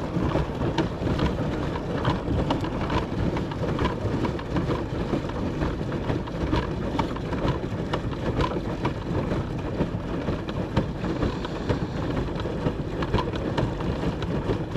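A pedal boat's paddle wheel churning through lake water, giving a steady patter of small splashes over a low rumble.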